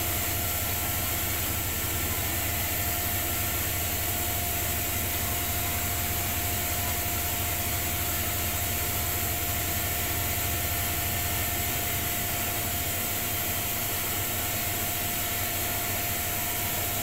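Bosch WAE20462TR front-loading washing machine in its final spin, the drum turning at a steady speed: a constant motor whine over a low hum and rushing air.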